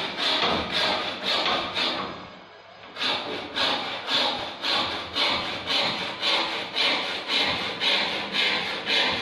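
Hand frame saw cutting through a wooden board in steady back-and-forth strokes, about two to three a second, with a pause of about a second early on before the strokes resume.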